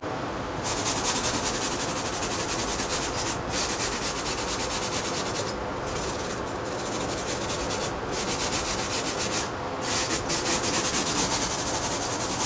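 Power sander grinding on a fiberglass car body: a continuous abrasive rasp whose high hiss drops out briefly several times as the pressure changes. It is knocking down molding flash and taking out mold-release wax left in the fiberglass.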